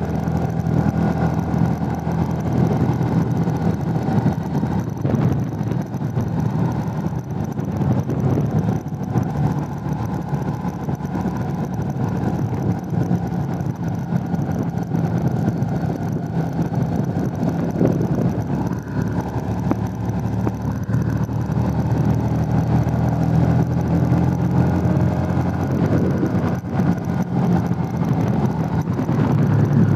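Motorcycle engine running at a steady cruising pitch while being ridden uphill, heard under heavy rushing wind noise on the handlebar-mounted microphone.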